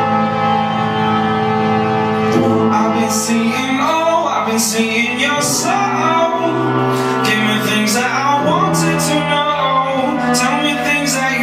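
A song playing for the dancers, with sung vocals over held, sustained chords.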